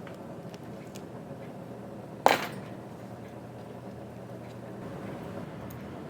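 A metal watchmaking tool clinks once, sharply, a little over two seconds in, with a few faint light ticks of tool handling around it, as the hands are being removed from a watch movement. A faint low hum fades out a little before the end.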